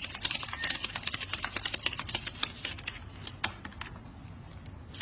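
Paper banknotes being counted by hand at high speed, the notes flicking past in a rapid run of crisp clicks that thins to a few separate clicks after about three seconds.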